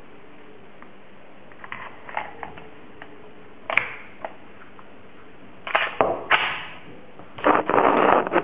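Glock 17 in a Roni carbine kit, chambered 9x21, firing low-powered plastic training bullets: a few light clicks, then a single sharp pop about four seconds in, followed by several longer, louder noisy bursts near the end.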